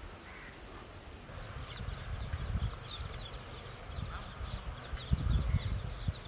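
Insects in the grass: a steady high-pitched drone that starts about a second in, with quick short chirps repeating beneath it. Irregular low rumble of wind on the microphone runs under it and is loudest about five seconds in.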